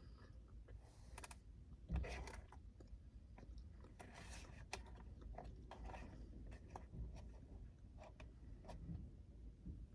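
Quiet close-up chewing with soft, scattered mouth clicks and smacks, one louder bite about two seconds in.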